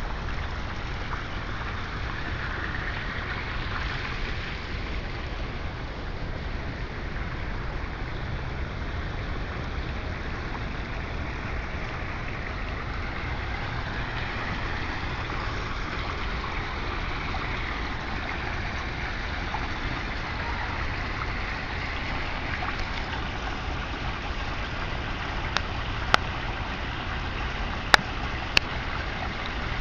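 Steady rumbling, hissing background noise with no clear source, with a few sharp clicks near the end.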